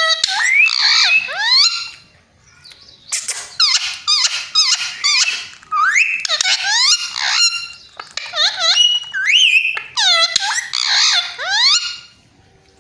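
Pet parrot chattering and whistling: about five bursts of rapid, high notes that glide up and down, with short pauses between them.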